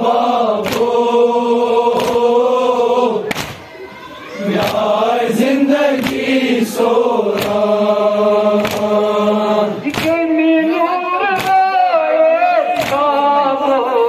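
Many men chanting a Muharram mourning dirge (nauha) together in long held lines, with a short break between lines about four seconds in. Sharp strikes repeat about three times every two seconds under the chant, in keeping with matam, hands beaten on chests in time.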